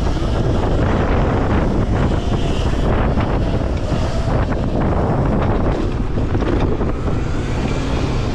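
Steady wind rushing over the microphone of a camera riding on a moving electric bike, with road noise underneath.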